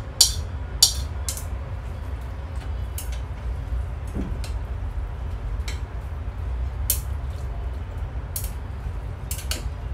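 Long chopsticks clicking together and tapping a ceramic bowl as noodles and toppings are arranged in it: sharp, irregular clicks about every second or two, over a steady low rumble.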